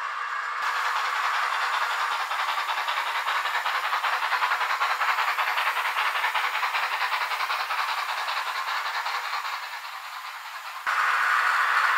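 Model ÖBB BR 52 steam locomotive with a sound decoder playing fast, even steam chuffs over a hiss as it runs past. The chuffing fades near the end and gives way abruptly to a louder steady noise.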